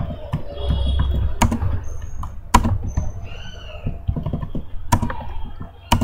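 Computer keyboard typing: irregular key clicks, with a few sharper, louder strikes, over a low steady hum.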